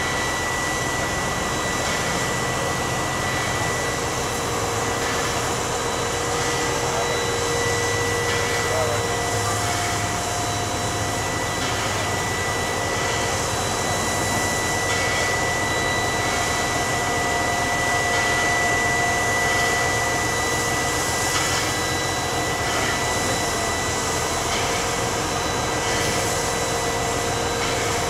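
Steady hissing rush from a South Maitland Railways 10 class steam tank locomotive standing in steam, mixed with the running of a truck-mounted hydraulic crane lifting coal. Thin whining tones run over it, one of them stepping up in pitch about ten seconds in and dropping back near the end.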